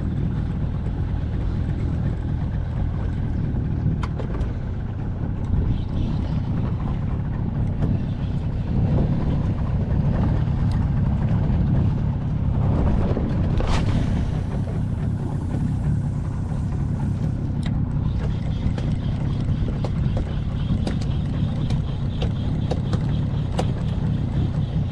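Steady low rumble of wind on the microphone and water slapping against a small boat on open sea, with a few faint clicks scattered through it.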